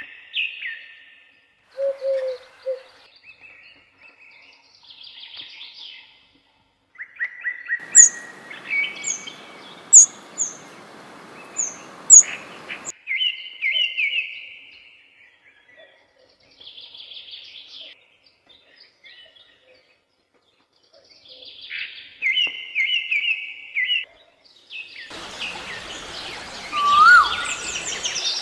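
Several birds chirping and trilling in short separate phrases, with sharp high chirps around 8 to 12 seconds in. A steady hiss of background noise lies under some passages, and there are gaps of complete silence between the bird phrases.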